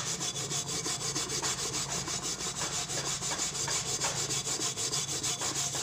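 Hand scrubbing the patterned metal base of a frying pan with quick back-and-forth strokes, several a second, giving a steady rasping rub as leftover grime loosened by foaming cleaner spray is worked off.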